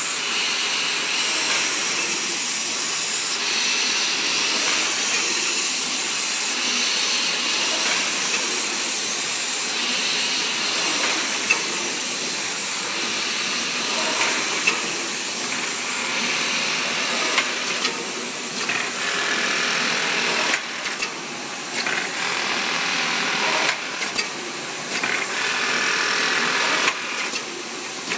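Paper collating machine running: a steady hiss, with sharp clicks from the sheet-feeding mechanism that come more often in the second half.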